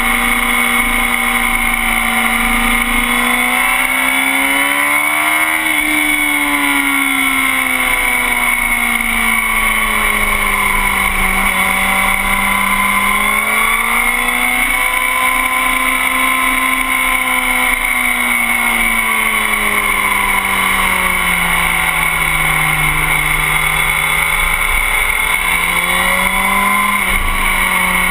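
Motorcycle engine being ridden hard at track speed, its pitch rising and falling slowly several times as the throttle is opened and eased off through the corners, with a steady high whine underneath.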